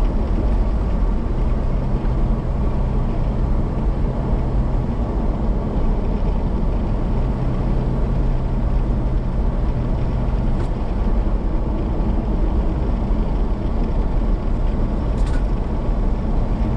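A vehicle driving steadily, heard from inside the cabin: a constant rumble of engine and tyre noise on the road, with a low engine drone that swells and fades. Two small clicks come in the second half.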